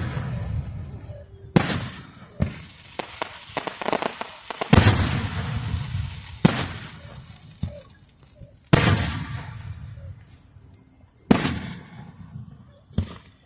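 Fireworks bursting overhead: six loud booms a couple of seconds apart, each trailing off, with smaller crackling pops in between.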